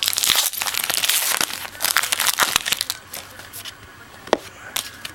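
A trading-card pack's wrapper being torn open and crinkled by hand, a dense crackling for about three seconds. After that come a few light clicks and rustles as the cards are handled.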